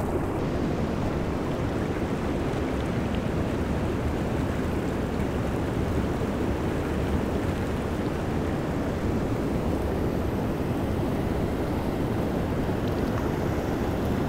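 Steady rush of a mountain stream's flowing water, an even noise with no breaks.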